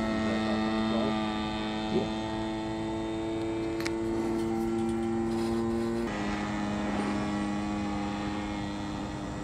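Radio-controlled scale Stinson Voyager model airplane in flight, its motor and propeller droning steadily overhead. The pitch drops a step about six seconds in.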